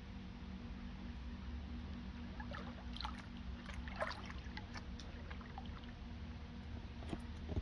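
Water splashing and lapping around a float drifting down a water-park lazy river, with a cluster of small splashes in the middle and another near the end, over a steady low hum.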